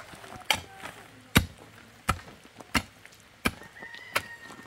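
Pickaxe striking stony, muddy ground in steady digging: six sharp blows, about one every 0.7 seconds.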